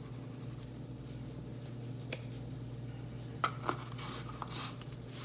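Goya adobo seasoning shaker being handled and shaken over a bowl: a few sharp light clicks and taps, then some brief light rustling, over a steady low hum.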